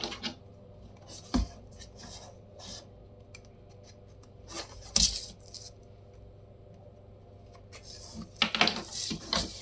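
Handling sounds of a cardboard product box and a plastic utility knife on a tabletop: scattered small clicks and knocks, one sharp knock about five seconds in the loudest, and a quick cluster of clicks near the end.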